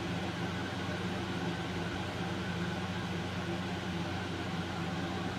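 Steady mechanical room hum: a low drone with a few even tones and a hiss over it, unchanging throughout, like a fan or air-conditioning unit running.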